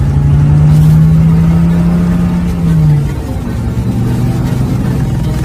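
Car engine as the vehicle drives off: a strong, steady engine note that rises slightly, then falls away about three seconds in, leaving a quieter low engine hum.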